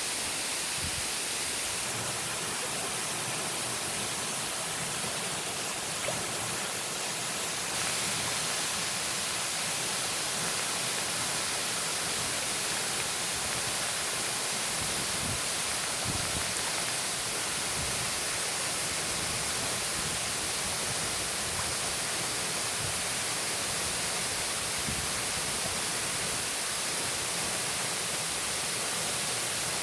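Steady rush of a tall free-falling waterfall, an even hiss of falling water and spray with no pauses; it becomes slightly louder about eight seconds in.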